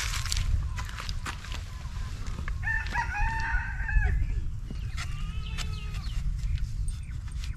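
A rooster crowing once, a long call of about a second and a half starting nearly three seconds in, followed a second later by a shorter, higher fowl call. A steady low rumble and scattered small clicks run underneath.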